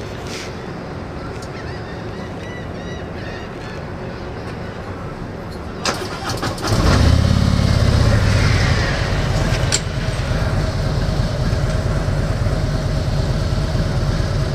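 A car engine cranks for a moment about six seconds in, catches with a surge, and settles into a steady idle. Before that there is only a low, steady hum.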